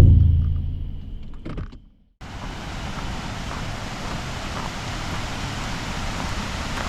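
A thump over low vehicle rumble that dies away over about two seconds, then after a brief gap a steady rushing of falling water from a waterfall.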